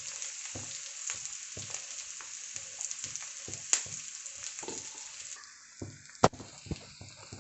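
Chopped onions frying in hot oil in an iron kadhai, a steady sizzle that drops off about five seconds in. Then a metal spatula stirs the onions, with a sharp clack of spatula against pan about six seconds in.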